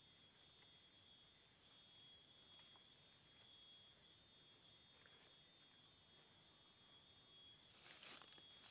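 Faint, steady high-pitched insect chorus of swamp-forest insects, several continuous tones at once, with a brief rustle near the end.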